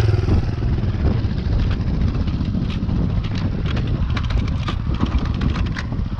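Enduro dirt bike engine running at low revs while the bike creeps downhill over rough grass. A steady low rumble, with scattered light knocks through the middle and later part.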